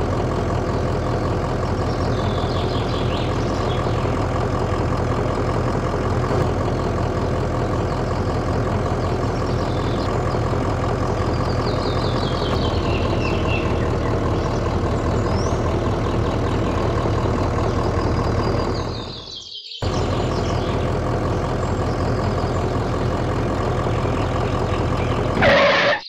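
Sound effect of a heavy engine idling steadily, accompanying a toy remote-control excavator. It cuts out for a moment about three-quarters of the way through, then starts again.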